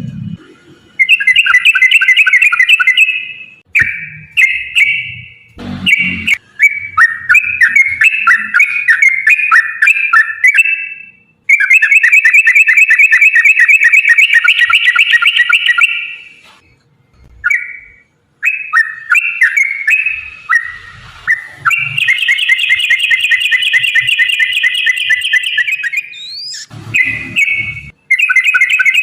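Yellow-vented bulbul (trucukan) singing its long rolling song: runs of rapid, bubbling chattering notes in phrases of a few seconds, with short pauses between them. A few low knocks are heard alongside.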